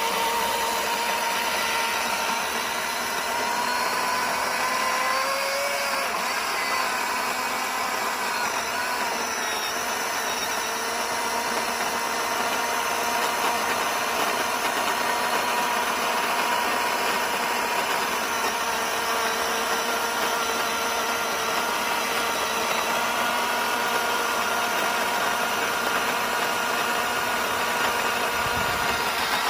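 Milwaukee Fuel cordless chainsaw running steadily with a continuous whine, most likely cutting through a large trunk; its pitch wavers slightly around five and nine seconds in.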